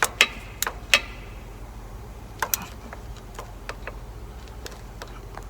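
Sharp metallic clicks, irregularly spaced, as a truck's brake adjuster is turned in with an 8 mm wrench to close up the new brake pads. Several come in the first second, then fewer and fainter ones.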